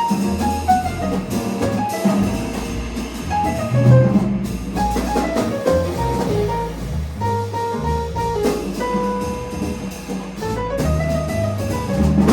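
Jazz piano trio playing: a moving piano line over bass and drum kit with cymbals.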